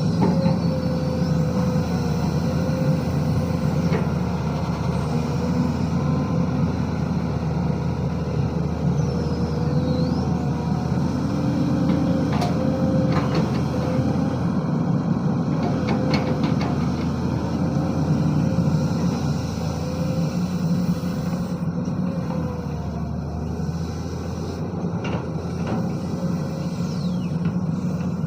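SANY SY215C excavator's diesel engine running steadily under load, with a wavering whine above the rumble and a few sharp clanks about twelve, sixteen and twenty-five seconds in.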